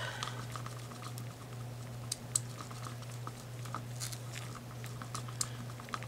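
Wooden popsicle stick stirring resin in a small plastic cup, scraping and tapping against the cup in light, irregular clicks.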